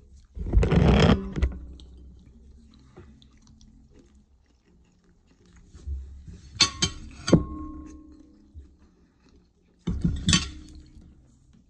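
Tableware being handled at a meal: a loud rubbing, knocking burst about a second in, several sharp clinks of dishes a little after halfway, one of them ringing briefly, and another knocking burst near the end.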